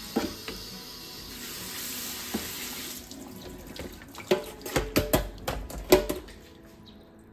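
Kitchen tap running into a sink, shut off about three seconds in, followed by a quick run of clinks and knocks from kitchenware being handled.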